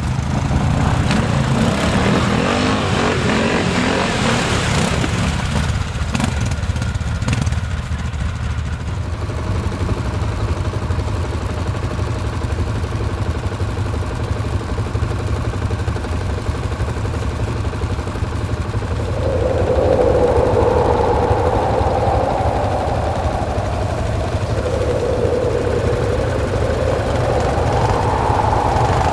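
Several ATV engines idling with a steady low hum. For the first several seconds there is a louder rushing noise, and from about two-thirds in one four-wheeler's engine revs slowly up and down, twice.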